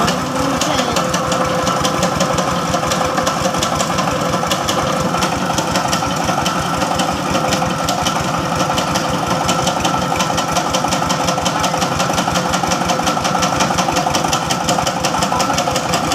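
The engine of a pickup truck rigged to drive a wood saw, running steadily with a fast, even beat.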